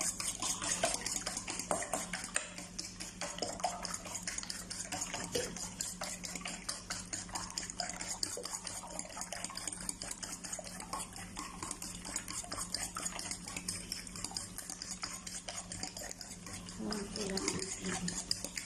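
A fork beating raw eggs in a stainless steel bowl: a steady run of quick metal clinks and scrapes against the bowl.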